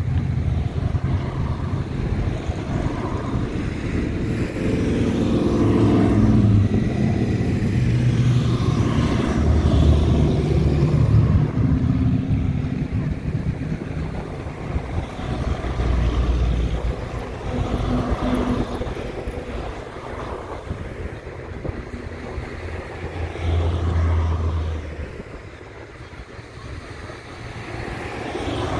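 Classic cars and bikes driving past one after another, their engines rising and fading as each goes by.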